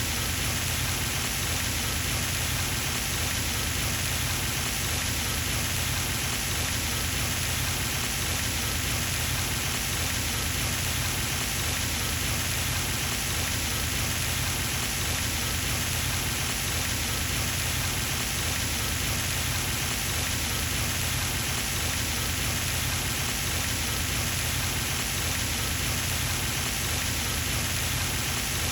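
Pond fountain running: a steady, unbroken splashing of water, with a steady low rumble underneath.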